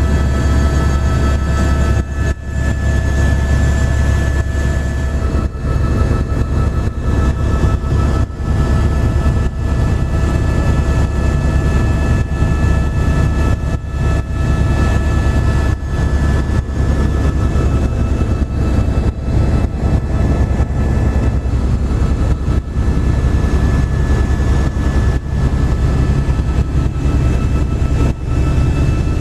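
Helicopter running: a steady, loud low drone with a thin, steady high whine above it.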